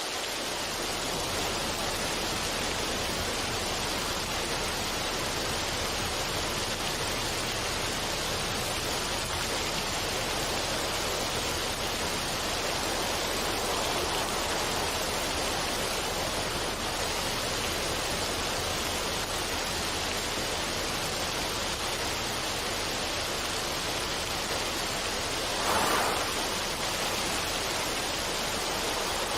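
Steady rushing water, an even hiss without pauses. It swells briefly louder near the end.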